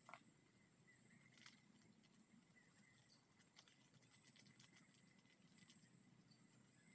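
Near silence: faint outdoor ambience with thin steady high tones and a few scattered soft clicks.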